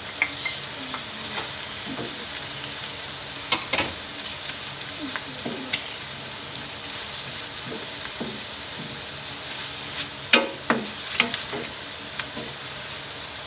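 Sliced button mushrooms, onion and garlic sizzling steadily in butter and oil in a frying pan, with a utensil stirring and clicking sharply against the pan now and then, most often near the end.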